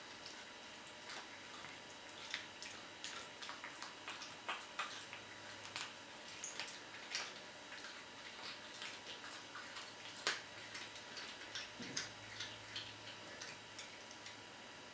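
Cat chewing a raw chicken head: faint, irregular wet clicks and crunches from its jaws, with a few louder cracks.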